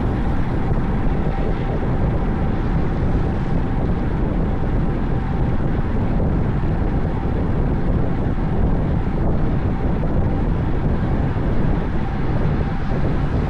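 Wind rushing over the microphone of a cyclist riding at speed on the road, a steady low rumble with a faint steady hum above it.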